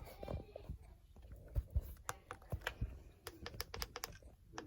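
A quick, irregular series of light, sharp clicks and taps, some bunched into short runs, over a faint background hiss.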